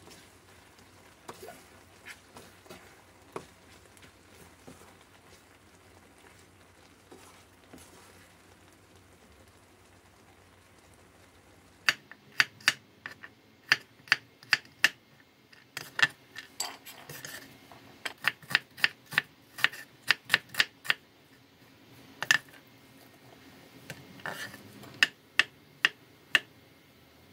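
Faint scraping of a wooden spatula stirring a thick sauce with rice cakes in a frying pan. Then, a little before halfway, a kitchen knife chopping on a wooden cutting board in irregular sharp knocks, slicing garlic cloves and then button mushrooms.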